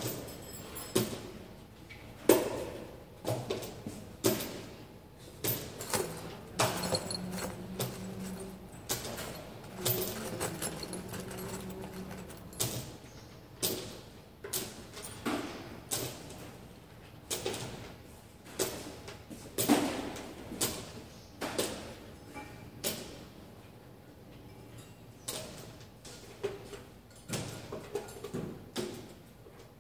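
Irregular knocks and clinks of steel parts being handled and fitted together on a wooden workbench, with dozens of separate hits spaced unevenly.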